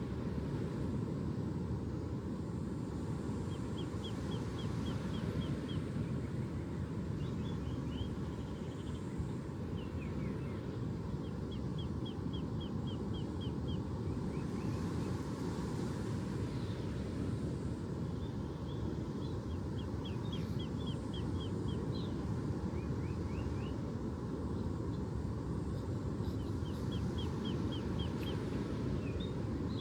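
A bird singing repeated fast trills of short high notes, one bout every few seconds, over a steady low rushing noise.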